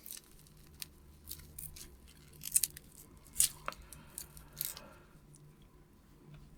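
Faint handling noise of small packaging: scattered clicks and brief crinkles as plastic packaging and small relays are handled, the loudest a little after two and a half seconds and near three and a half seconds.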